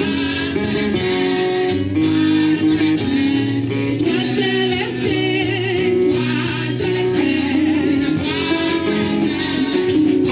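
Gospel worship music: voices singing together over an instrumental backing with guitar.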